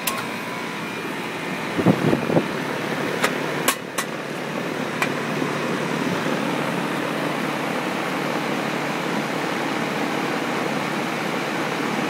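Rheem Classic 3-ton heat pump outdoor unit starting up: a few clicks and knocks about two to five seconds in, then its condenser fan and compressor settle into a steady rush of air.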